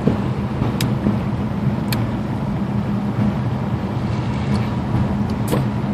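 Car engine and road noise heard from inside the cabin while driving: a steady low hum over a noise background, with a few faint clicks.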